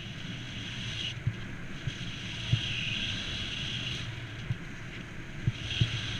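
Skis hissing and scraping over groomed snow as the skier carves turns, the hiss swelling and fading with each turn. Wind rumbles on the camera's microphone, with a few short low thumps.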